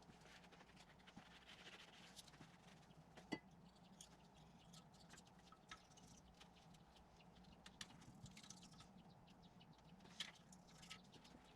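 Near silence with faint, scattered small clicks and taps of hand work on parts, and one sharper click about three seconds in.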